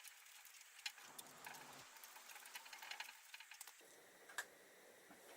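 Faint, irregular metallic clicks and light handling noise from hand tools working the main pin out of a motorcycle brake caliper.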